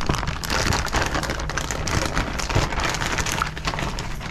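Rain falling steadily, a dense hiss with many scattered ticks.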